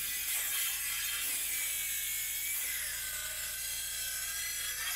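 Cordless drill-driver running steadily, driving a screw into pallet wood, with a faint motor whine that drifts slowly in pitch.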